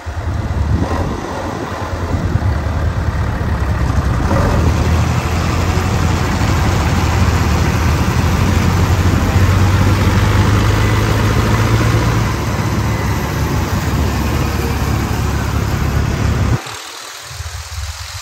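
Tractor diesel engine running steadily with a deep hum, a little louder in the middle, then dropping away abruptly near the end.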